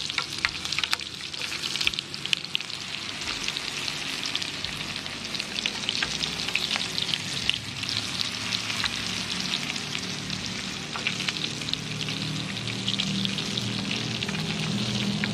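Flour-coated banana-stem slices deep-frying in hot oil in a small pan: a steady crackling sizzle full of tiny pops.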